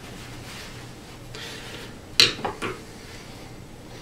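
Three quick knocks about two seconds in, from a PVC backdrop pipe and a screwdriver being handled against a wooden shelf; otherwise faint room noise.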